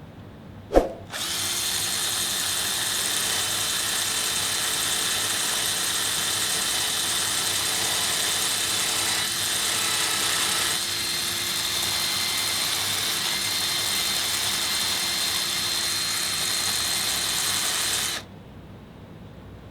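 Electric drill running steadily with a bit grinding down the metal surface of a bicycle brake caliper to clear the chain, which has been rubbing on it. A sharp knock comes just before the drill starts, and the drill cuts off abruptly shortly before the end.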